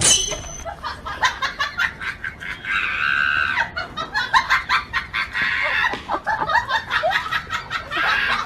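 Chickens squawking and clucking in repeated bursts, mixed with many short clattering, scuffling sounds.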